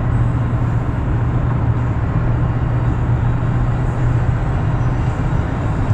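Steady road and engine noise heard from inside the cabin of a 2011 Chevrolet Tahoe on the move, a low, even drone with no sudden changes.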